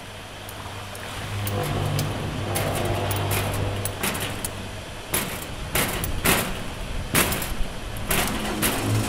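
Sound effects for a deep-sea mining machine: a steady low machine hum that grows louder about a second and a half in, then a series of sharp impacts in the second half as its spinning cutter head strikes a hydrothermal vent chimney.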